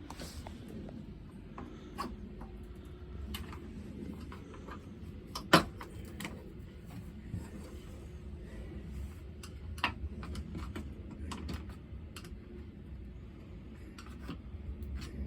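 Scattered clicks and knocks of hand tools and plastic parts being worked loose from a truck's front valance, with a sharper knock about five and a half seconds in and another near ten seconds, over a low steady rumble.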